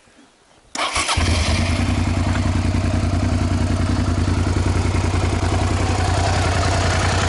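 A 2006 Suzuki SV650's 90-degree V-twin engine starts up a little under a second in, catches at once and settles into a steady idle with a fast, even beat.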